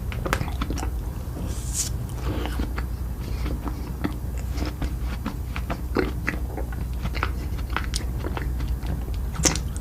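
Close-miked eating: chewing and biting food, a run of many short, crisp clicks and crunches.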